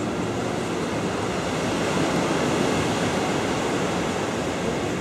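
Ocean surf breaking on a sandy beach: a steady roar of waves and foam that swells a little louder in the middle.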